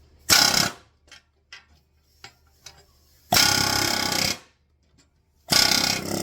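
Pneumatic air hammer driving a rivet into sheet metal in three short bursts, the longest about a second, with light clicks of handling between. The hammer is turned down, running on little air.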